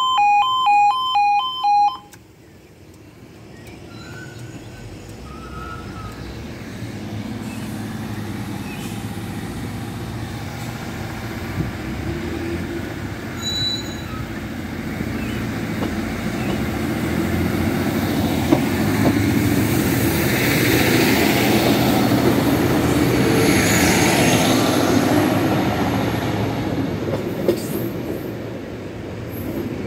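A level crossing's alarm sounder alternates between two tones, then cuts off about two seconds in. A diesel multiple unit train then approaches and runs over the crossing, its engine and wheels on the rails building steadily. The sound is loudest about two-thirds of the way through, then eases off near the end.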